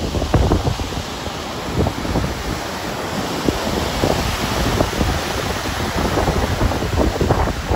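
The Severn tidal bore breaking and churning as it runs upriver, a steady noise of surf, with wind buffeting the microphone.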